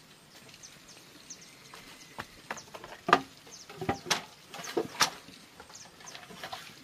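A series of sharp knocks, the loudest three about a second apart in the middle of the stretch.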